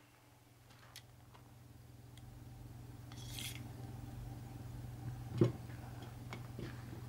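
Handling noises at a shooting bench: a short rustle about three seconds in, then a single knock about five and a half seconds in as gear is set down on the table, with small clicks, over a steady low hum.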